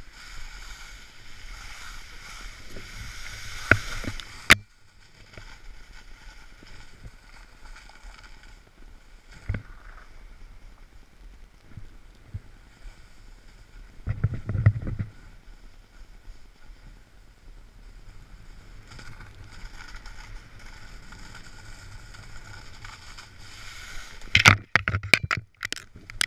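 Snowboard sliding and carving over snow, a steady scraping hiss that is louder in the first few seconds, with a sharp click about four and a half seconds in. Near the end come several sharp snaps and knocks as the board passes through bare branches.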